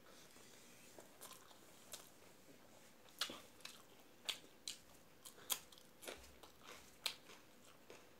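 A person chewing a mouthful of rice and curry, with faint, irregular wet mouth clicks and smacks that come more often from about three seconds in.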